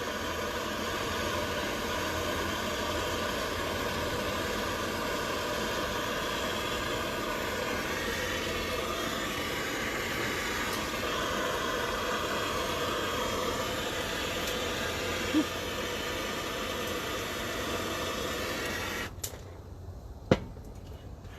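Steady hiss of a heating tool working on a 4/0 wire connector to make the joint bond. It cuts off abruptly near the end, followed by a single sharp click.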